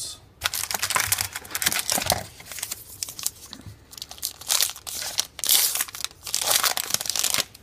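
A trading-card pack wrapper crinkling and tearing as it is handled and ripped open, in uneven bursts of crackling, stopping abruptly near the end.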